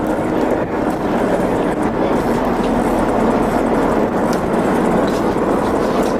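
Fishing boat's engine running steadily, a constant even rumble with no let-up.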